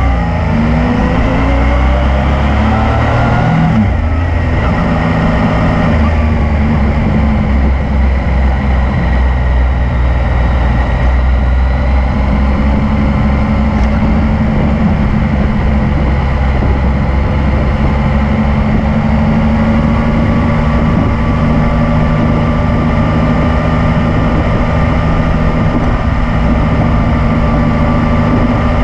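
Yamaha MT-09's three-cylinder engine under way, climbing in pitch through the revs, with a break about four seconds in as it changes gear. It climbs again briefly, then settles to a steadier cruise.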